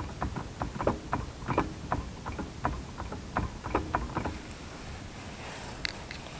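Lada Niva driveline being rocked by hand at the transfer case, giving a quick run of metallic clicks and light clunks as the free play is taken up back and forth: a sign of play in the worn driveshaft and transfer case. The clicking stops about four seconds in.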